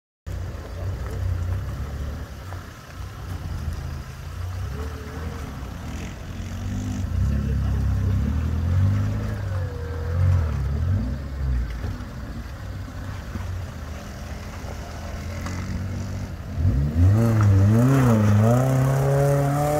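Off-road 4x4 engine running, then revved hard from about 17 seconds in, its pitch rising and falling over and over and getting louder.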